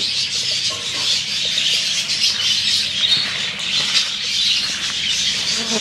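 Many birds chattering and squawking at once in a dense, continuous chorus of high calls.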